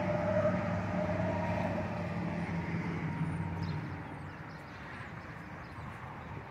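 A motor vehicle's engine running past, a steady low hum that fades away after about four seconds.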